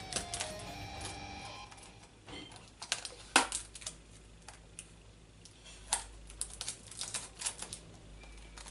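Irregular sharp plastic clicks and snaps as the edges of a clear plastic container holding a tarantula are snapped off, the loudest snap about three and a half seconds in.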